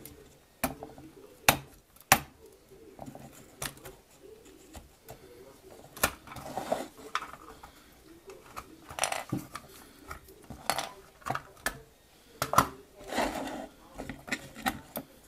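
Hard plastic clicks, knocks and scrapes as a toy monster truck's plastic body and chassis are handled, turned over and tapped on a wooden board. The body is lifted off the twin-motor chassis. The sharpest knocks come about one and a half and two seconds in.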